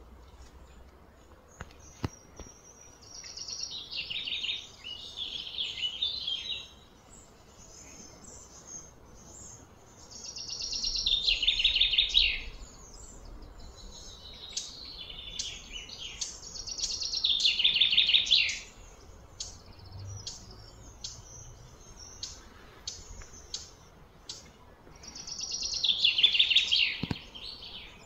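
High-pitched wildlife calls: four long phrases, each swelling for about two seconds and then stopping abruptly, with shorter chirps in between.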